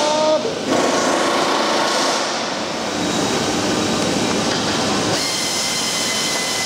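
Steady machinery noise with a hiss, dipping briefly about half a second in; a thin high steady tone comes in about five seconds in.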